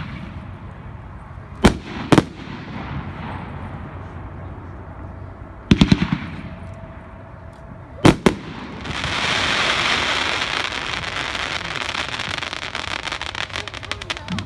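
500-gram consumer fireworks cake, the Sure Bet, firing. There are sharp bangs of bursting shells about two seconds in, again near six seconds and near eight seconds. From about nine seconds a dense crackle takes over and slowly fades.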